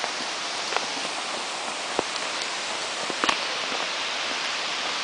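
Steady hiss of rushing water from a stream or waterfall, with a few faint knocks of footsteps on stone steps.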